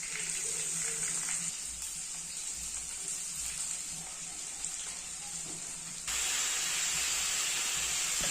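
Chicken frying in hot oil in a pan, a steady sizzle that turns suddenly louder about six seconds in.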